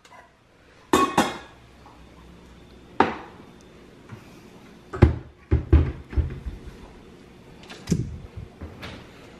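Stainless steel pot and its glass lid clanking on a granite counter, mixed with knocks and duller thumps of kitchen cabinet doors and contents being handled: a handful of separate knocks, the loudest about five seconds in, followed by a quick cluster of duller thumps.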